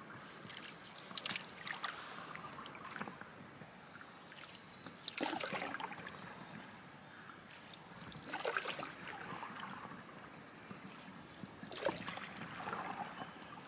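Wooden single-bladed canoe paddle dipping and pulling through calm lake water, a soft splash and trickle with each stroke every few seconds.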